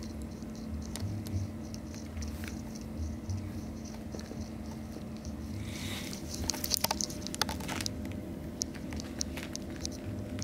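A kitten's paws and claws patting and scratching at a knitted sock and carpet: scattered light clicks and scrapes, busiest from about six to seven and a half seconds in, over a steady low hum.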